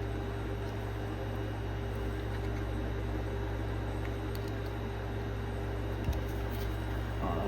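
Steady low room hum with no change in level, and a faint click about six seconds in.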